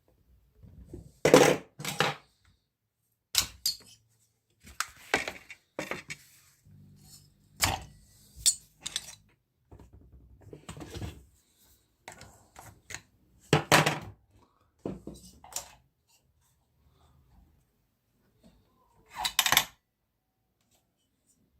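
Metal tools and small metal parts being handled, with irregular clinks, clatters and knocks set down on a work surface during chainsaw repair work.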